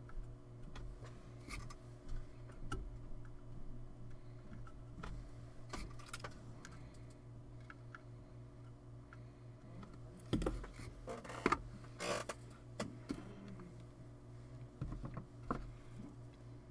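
Small clicks and taps of hand soldering work on a circuit board, as the soldering iron and solder wire are handled, with a louder burst of clattering a little past the middle when the tools are moved and the solder spool is set down. A steady low hum runs underneath.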